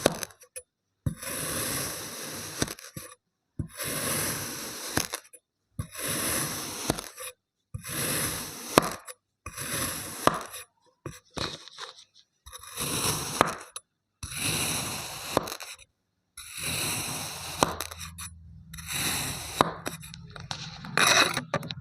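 Kinetic sand being cut and scraped with a tool, a gritty scraping that comes in about ten separate strokes of a second or two each, with dead silence between them and a few sharp ticks.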